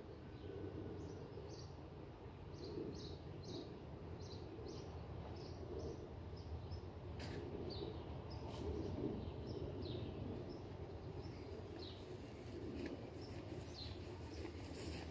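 A small bird chirping repeatedly in short high notes, about two a second, over a low steady outdoor background rumble, with a couple of faint clicks midway.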